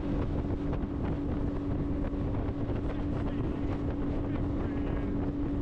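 Motor running steadily with a constant hum and a low rumble, with wind rushing over the microphone while travelling.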